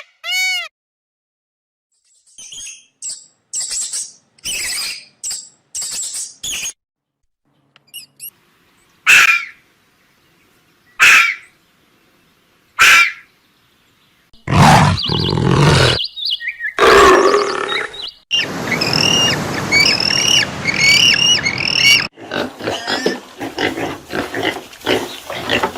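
A sequence of different animal calls, one after another with short gaps between them, growing louder and denser about halfway through, with a run of short repeated high calls near the end.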